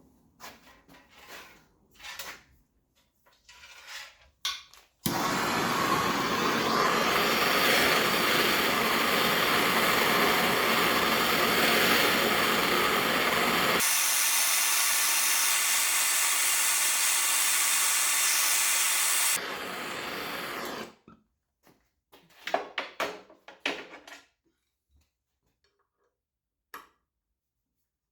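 A handheld torch burning with a loud, steady hiss for about fifteen seconds, heating a clutch ring screw to soften its thread-locker. The hiss loses its low rumble about halfway through and turns quieter just before it stops. Tools clink and knock before and after.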